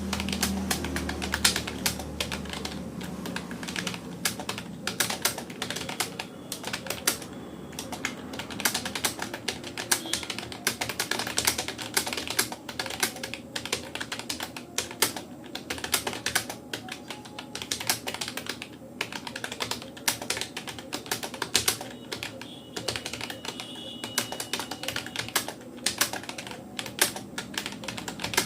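Fast, continuous touch typing on a Rapoo computer keyboard: a steady stream of key clicks, several a second, with space-bar and key strokes running on without pause.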